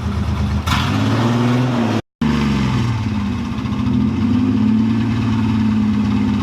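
Truck engine running and being revved lightly as it is driven and parked, pitch rising and falling a little; the sound cuts out completely for a moment about two seconds in.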